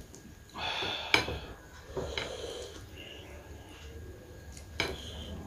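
Eating close to the microphone: tableware clinking sharply twice, about a second in and near the end, between soft noisy eating sounds.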